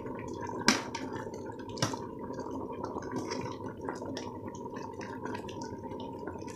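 Jackfruit curry simmering in an aluminium pot, bubbling and popping as it is stirred with a metal ladle. Two sharp knocks of the ladle against the pot stand out, the first under a second in and the second about a second later.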